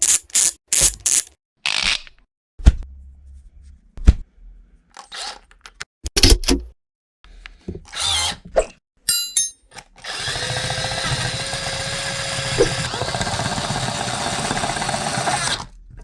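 A string of short clicks, knocks and scrapes of tools and parts being handled, then about ten seconds in a power tool starts and runs steadily for around six seconds before stopping.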